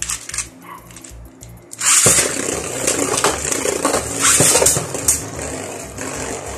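A few sharp plastic clicks from Beyblade tops and launchers being handled. About two seconds in comes a sudden loud launch as the tops are sent into the plastic stadium, followed by the spinning tops clattering and knocking against each other and the stadium walls, over background music with a steady beat.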